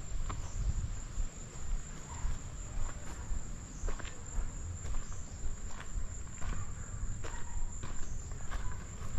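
A hiker's footsteps on a woodland trail, irregular soft steps about once a second, over a steady high-pitched drone of summer insects.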